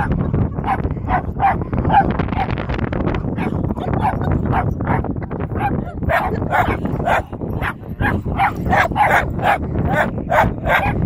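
Dog barking in a run of short, sharp yaps, coming faster and louder from about halfway through.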